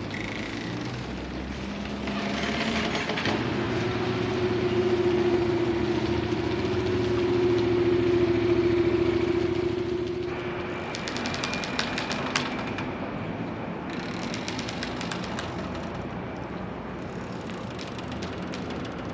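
A steady, even-pitched engine hum builds over a few seconds and cuts off abruptly about ten seconds in. It is followed by a few seconds of rapid sharp clicking over outdoor background noise.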